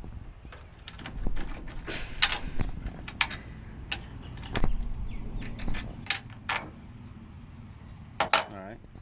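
Irregular metallic clicks and clinks of J-hook nuts and washers being handled and turned by hand on the floor of an aluminum diamond-plate truck toolbox, with a short vocal sound near the end.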